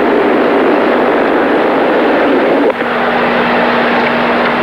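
Steady, loud arena crowd noise from the spectators at a gymnastics meet, with no clear claps or shouts standing out. It dips briefly a little past the middle, where a low steady hum comes in.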